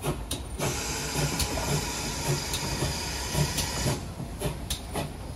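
Steam hissing from a Collett 6400 class 0-6-0 pannier tank steam locomotive. It starts about half a second in and stops sharply about four seconds in, over the low rumble and repeated clicks and knocks of the train.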